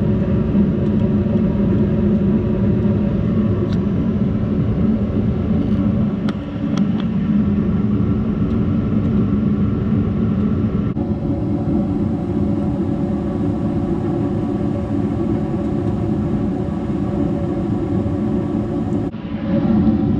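S9V2 gas furnace running: a steady motor hum from the inducer and blower. It shifts in tone about eleven seconds in, with more hiss, and dips and changes again near the end.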